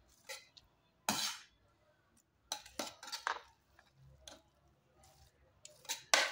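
A metal spoon scraping and clinking against the side of a metal pot as cooked rice is stirred, in short irregular strokes with pauses between them, the loudest about a second in.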